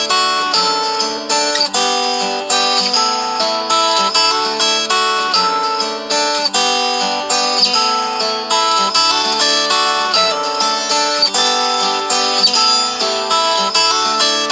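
An LG V20 stock ringtone: a bright melody of plucked-string notes, each struck sharply and fading, playing continuously.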